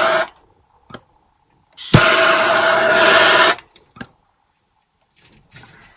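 Plumbing torch flame hissing as a soldering torch is fired on copper pipe: a burst that cuts off just after the start, then a click as it is relit and about two seconds of steady hiss.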